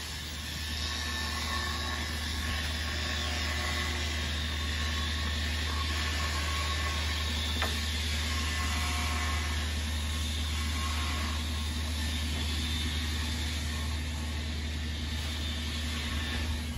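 Steady low mechanical hum of an engine or machine running, with faint higher whining tones over it.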